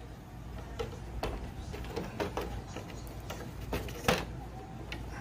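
Irregular plastic clicks and knocks as a radio-controlled car's body shell is handled and fitted onto its chassis, the loudest about four seconds in, over a low steady hum.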